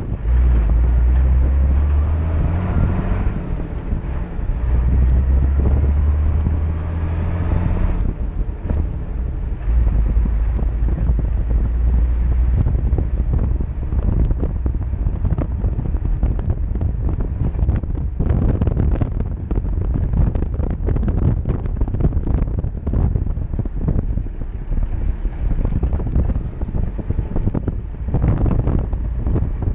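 Classic Mercedes-Benz car driving, its engine running and rising in pitch about two seconds in. After about eight seconds, wind buffeting the microphone and road noise cover the engine.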